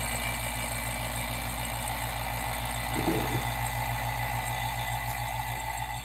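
Electric vacuum pump running steadily, a constant hum with a hiss over it, as it draws the air out of a sealed glass jar.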